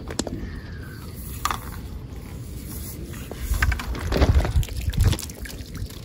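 Lake water splashing and sloshing as a landing net scoops a hooked fish and is lifted out, loudest between about three and a half and five seconds in.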